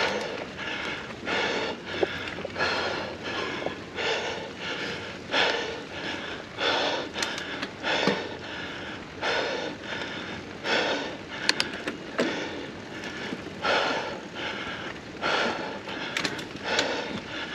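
A mountain biker breathing hard and rhythmically close to the microphone, a loud breath about every second and a half, with a few sharp clicks and knocks from the bike.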